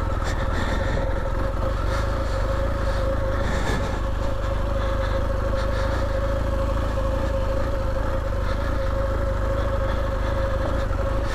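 Adventure motorcycle's engine running at a steady, even speed while the bike rides slowly off across rough grass, heard from the rider's own bike.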